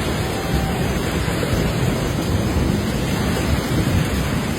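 Loud, steady rush of flash-flood water, a deep roar with no letup.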